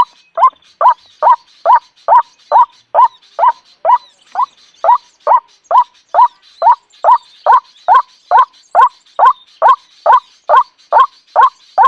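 A bird calling one short, pitched note over and over at a very even pace, about two and a half calls a second, with no pauses.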